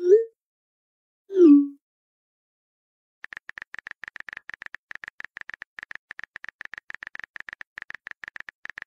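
Texting-app sound effects: a short rising blip, then a louder falling pop about a second and a half in as a message bubble arrives. From about three seconds on, a fast, even run of keyboard-typing clicks, about ten a second.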